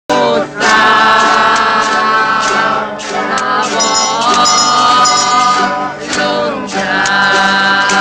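Music: a singing voice holding long notes over an instrumental accompaniment with sharp plucked or struck attacks.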